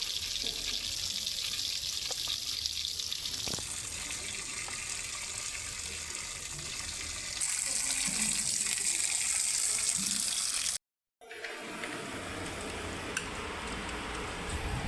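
Water running steadily from a kitchen tap, its flow changing twice. It cuts off abruptly about eleven seconds in, and after a brief silence a different steady background noise follows.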